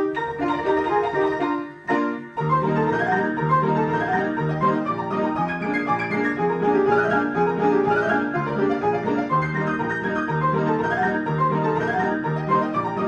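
Player piano playing a march from a paper music roll. After a brief pause about two seconds in, a full strain begins, with a steady alternating bass under the chords and melody.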